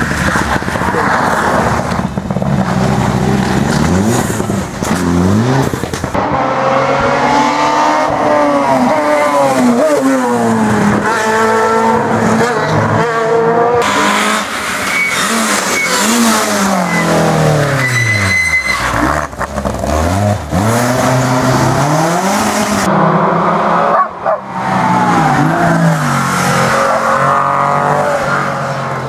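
Rally cars racing past one after another on a tarmac stage, their engines revving high and dropping again and again with gear changes and lifts off the throttle.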